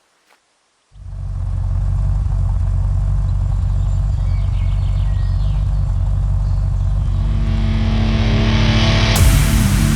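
Side-by-side UTV engine starting up about a second in and running steadily with a low, even drone, growing louder, with a rush of noise added near the end.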